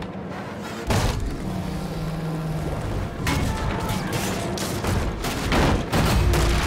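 Film sound effects of chaos on a sailing ship's deck: a heavy hit about a second in, then, from about three seconds on, a dense run of crashes and bangs.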